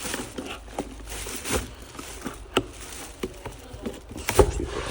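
Rustling with scattered light clicks and knocks as new transmission clutch parts and their packaging are handled, with a louder knock about halfway through and the loudest knocks near the end.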